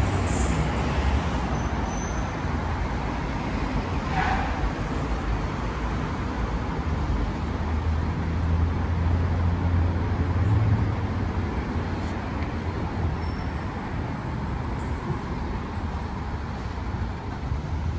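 Street traffic: cars and heavier vehicles passing, a steady rumble of engines and tyres that is heaviest about halfway through.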